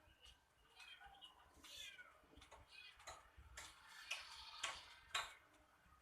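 Cats meowing faintly: several high, falling calls, some overlapping, with a few sharp clicks in between, the loudest about five seconds in.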